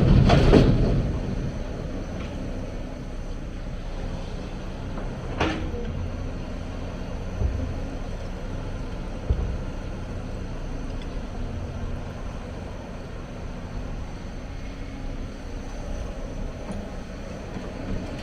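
Hyundai 290 hydraulic excavator running steadily at work, its diesel engine a low even drone. A loud rush of noise fades out within the first second, and a few short knocks come later.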